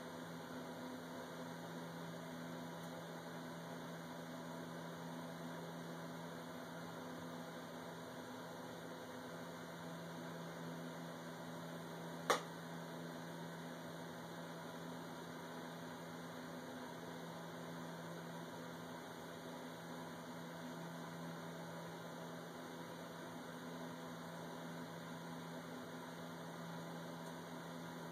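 Steady low hum with hiss, and one sharp click about twelve seconds in.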